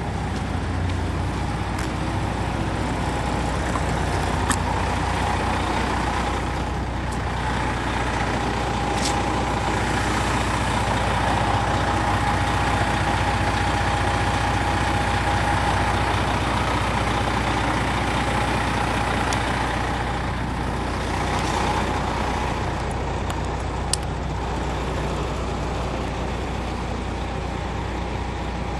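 Detroit Diesel Series 60 straight-six of a 2001 MCI D4000 coach running under way, heard from the rear of the cabin as a steady deep rumble. A whine rides on top, swelling through the middle and easing again, with a few sharp ticks.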